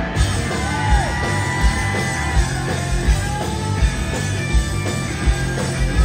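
Live rock band playing on stage: a drum kit with a steady kick drum about every three-quarters of a second, bass and electric guitar, and a singing, shouting vocal.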